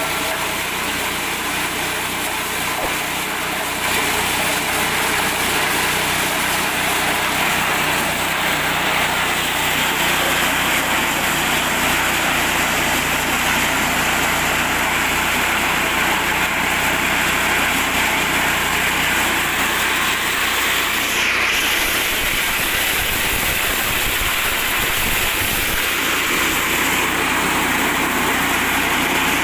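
Small 8 hp petrol engine running steadily, driving a mini corn sheller; the sound gets a little louder about four seconds in.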